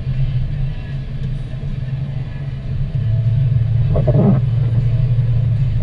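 A car driving on a wet, slushy road, heard from inside the cabin: a steady low rumble of engine and tyres. A brief higher sound comes about four seconds in.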